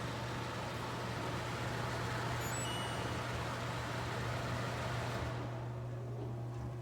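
Kesnos 80-pint dehumidifier running: a steady rush of fan air over a low, constant compressor hum, with a brief faint high tone near the middle. About five seconds in the airy rush drops away sharply, leaving mostly the hum.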